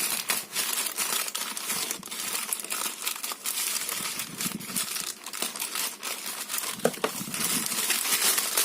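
Packaging of a delivered parcel being torn open and crinkled by hand, a steady run of crackles and rustles.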